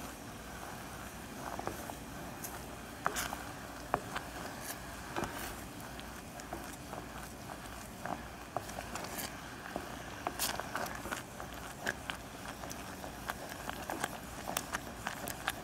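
Wooden spoon stirring thickening teriyaki sauce in an enameled cast-iron saucepan: soft scrapes and irregular light clicks of the spoon against the pot.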